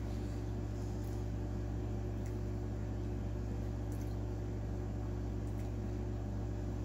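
Steady low electrical hum and hiss of room tone, with a few very faint ticks.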